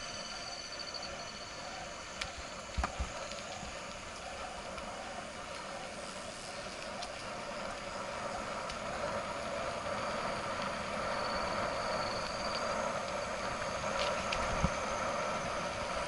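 A bicycle ridden along a paved trail: steady tyre and wind noise with a few sharp knocks as the bike rattles over bumps, growing louder near the end as it speeds up.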